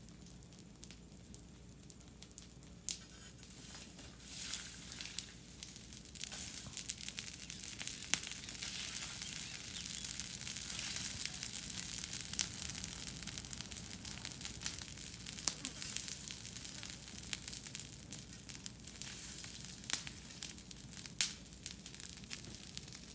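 Burning piles of dry brush crackling, with irregular sharp pops over a steady hiss; the crackle grows louder about five seconds in.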